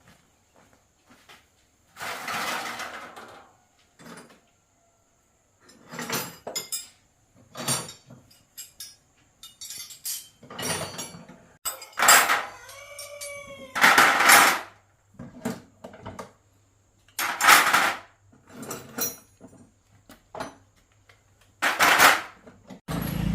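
Metal hand tools and small metal parts clinking, knocking and clattering in irregular bursts, one piece ringing out briefly about halfway through: a small motorcycle being taken apart by hand.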